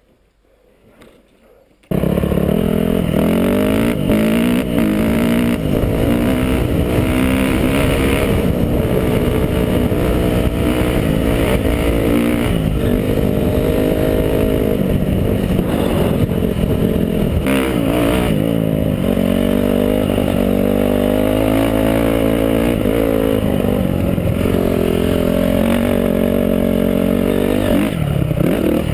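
Honda CRF dirt bike engine running while being ridden, its pitch rising and falling as the throttle opens and closes. It comes in suddenly about two seconds in.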